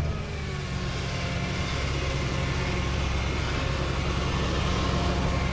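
Rollback tow truck's engine running steadily with a low hum, heard from inside the cab.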